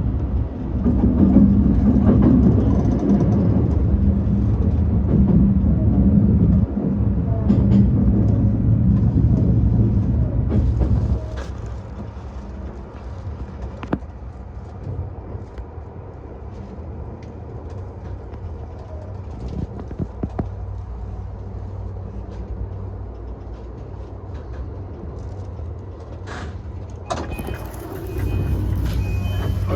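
Yokosuka Line E235 series 1000 electric train running, a steady low rumble of wheels on track, that drops away abruptly about eleven seconds in as the train comes to a stop, leaving a quieter steady hum with occasional clicks. Near the end a louder sound with a steady high tone comes in.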